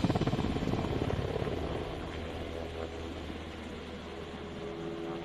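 Helicopter rotor chop with a steady low hum, fading gradually.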